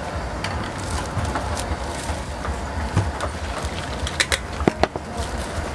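Stainless steel cookware clinking, a few sharp ringing strikes close together about four seconds in, while soup is poured from a steel cup into a plastic bag. Under it runs a steady low outdoor rumble.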